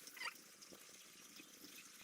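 Near silence: faint background hiss, with one brief faint high-pitched sound about a quarter second in.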